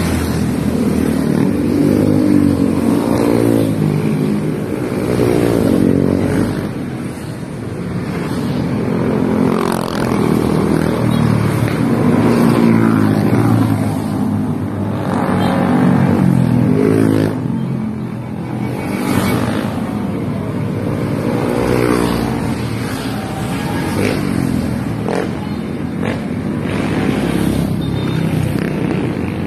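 Motorcycle engine running under way, its pitch repeatedly climbing and dropping as it accelerates and eases off.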